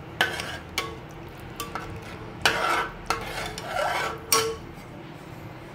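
Metal spatula stirring thin sambar in a metal pot: several irregular scrapes and clinks of the spatula against the pot, stopping about four and a half seconds in.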